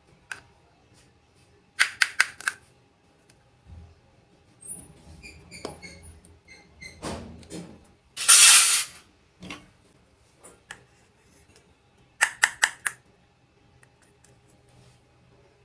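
Miniature steel toy kitchenware being handled: quick clusters of sharp clicks, a few small metallic clinks that ring briefly, and a short hiss near the middle.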